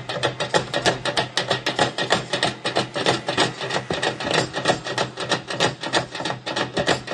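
Percussion ensemble beating drums made from waste plastic barrels and containers with sticks, playing a fast, steady rhythm of many strikes a second.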